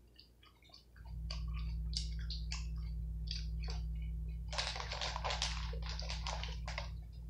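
Plastic salad bag crinkling and crackling as it is handled: scattered crackles at first, then a dense stretch of crinkling in the second half. Underneath runs a steady low hum that is absent at the start and comes back about a second in.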